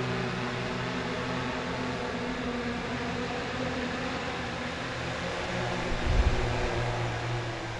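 Steady whirring hum of many rotors running, over an even hiss, as the animated multi-rotor aircraft lifts off and climbs; a brief low rumbling thump about six seconds in.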